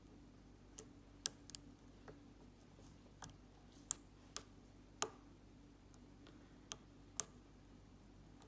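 Faint, sharp, irregular clicks of a lock pick working the pins of an all-brass Corbin padlock under tension, about ten in all.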